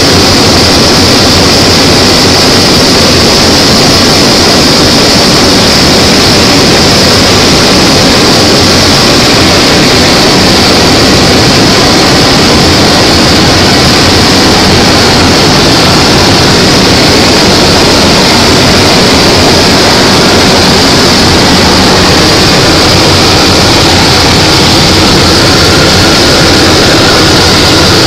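Propeller airplane's engine and airflow heard from inside the cockpit in flight: a loud, steady drone with an even hiss, unchanging throughout.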